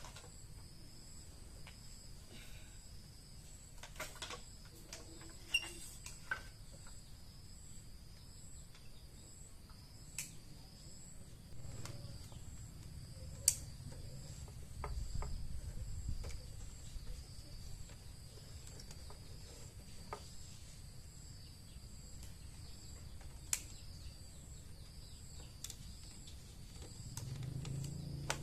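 Insects, likely crickets, chirring steadily in two high pulsing tones, with scattered light clicks and knocks and a low rumble that swells briefly around the middle and near the end.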